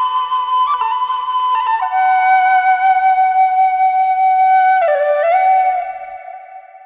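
Background music: a solo flute playing slow, long-held notes with short grace-note ornaments and a bend in pitch, fading out near the end.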